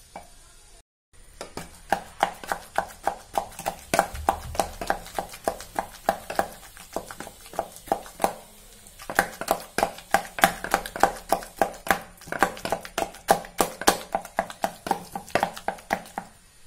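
A wooden churner (mathu) pounding steamed bananas in a stainless steel bowl: quick repeated knocks of the wooden head through the soft fruit onto the bowl, about three to four a second, with a short lull in the middle.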